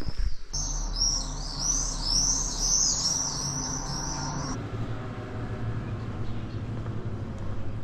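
Swallows chirping overhead: a quick run of high arched chirps, several a second, that stops suddenly after about four seconds.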